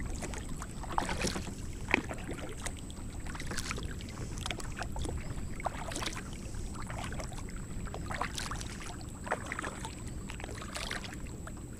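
Kayak paddle strokes, the blade dipping and splashing in the water about every two and a half seconds, with a sharp knock about two seconds in.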